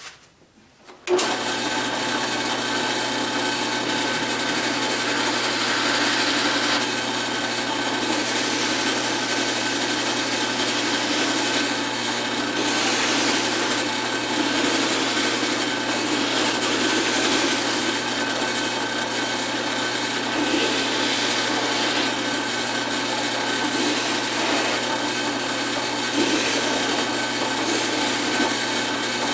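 Drill press starting up about a second in and running steadily with a sanding drum in its chuck, sanding the curved edge of a wooden piece pressed against the spinning drum.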